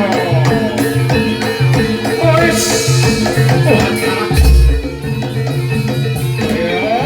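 Javanese barongan accompaniment music: drums and pitched percussion playing a steady rhythmic pattern, with a deep drum stroke about four seconds in and another at the end.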